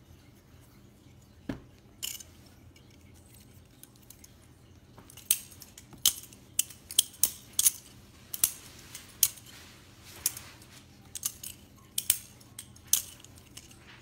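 Metal practice butterfly knife (balisong trainer) being flipped open and closed: sharp metallic clicks and clacks as the handles swing round and knock against each other and the blank blade. A couple of single clicks come first, then quick irregular runs of clacks from about five seconds in.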